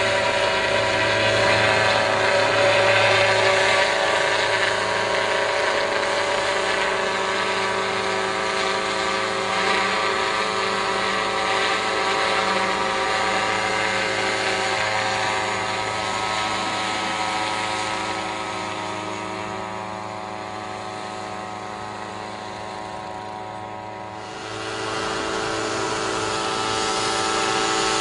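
A powered sprayer's motor running steadily. It slows and quietens for several seconds, then picks up again sharply near the end.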